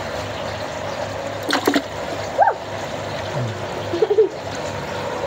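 Water splashing and trickling in a plastic bucket as hands move a fish in a net under the surface, over a steady hum, with one sharp click about a second and a half in.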